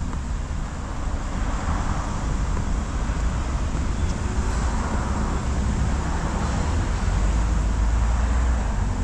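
Road traffic, a steady low rumble with swells as vehicles pass, growing louder toward the end.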